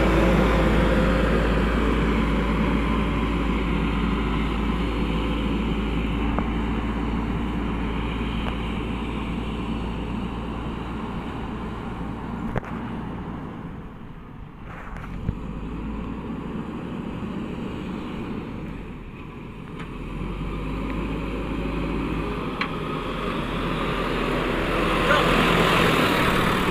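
Heavy construction vehicle's engine running with a deep rumble, fading away through the middle and growing louder again near the end, with a couple of brief knocks.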